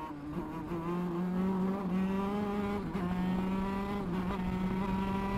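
A 125cc two-stroke shifter kart engine running at high revs under way, heard close up from on board. Its high, steady note holds nearly level, with a few brief small dips in pitch.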